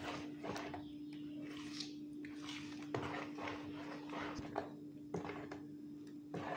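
A metal spoon stirring thin rice-flour batter in a plastic bowl: soft, irregular squishing and scraping strokes. A steady low hum runs underneath.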